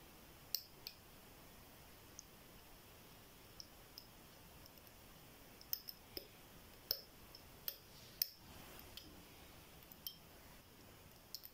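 Faint, irregular metallic clicks of a pick working the spring-loaded pins of a GLK ten-pin euro dimple cylinder lock, about a dozen sharp ticks spaced unevenly, several clustered in the middle.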